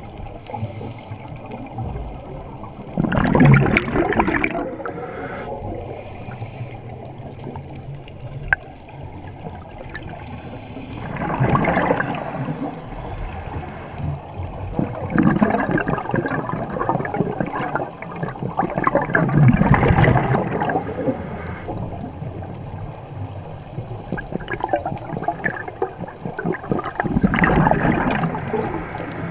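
Scuba diver breathing through a regulator underwater: surges of exhaled bubbles gurgle past every few seconds, the loudest about every eight seconds, with quieter water noise between.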